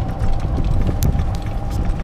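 Golf cart driving along a paved cart path: a low rumble of wheels and wind on the microphone, a steady whine, and light clicks and rattles, with one sharper click about halfway.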